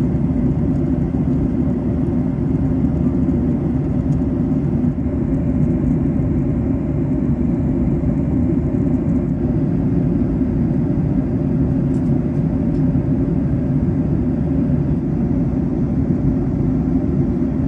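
Steady cabin noise of a Boeing 737-800 in cruise, heard inside the cabin: a constant low rumble of the CFM56 engines and airflow.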